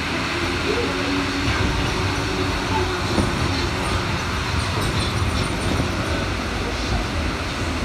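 MP73 rubber-tyred Paris Métro train running, a steady rolling rumble and hiss.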